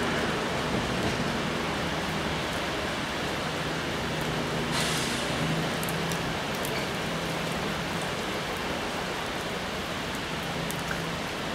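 Heavy rain falling steadily, with the low drone of a departing Class 221 Voyager diesel train's engines underneath, fading slightly as it pulls away. A brief hiss about five seconds in.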